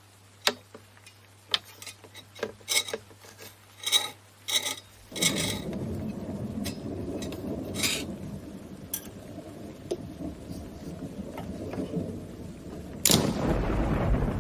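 Sharp scraping and tapping strokes from hand work on metal, then a steady low rumble from about five seconds in, with a sudden loud rush near the end.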